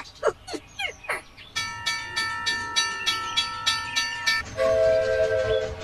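Opens with a few quick falling chirps, then a horn sounds a steady high chord over regular clicking, about three clicks a second. Near the end it switches to a lower horn chord.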